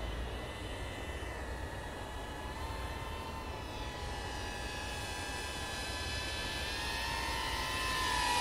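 Micro FPV quadcopter's four DYS 1306 4000KV brushless motors and 3-inch three-blade props buzzing in flight, a steady high-pitched whine. It grows louder over the second half as the quad flies closer.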